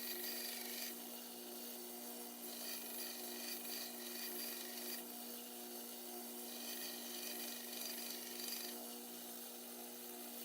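Faint rasping of pocket-knife handle scales being sanded, in stretches that start and stop, over a steady low hum.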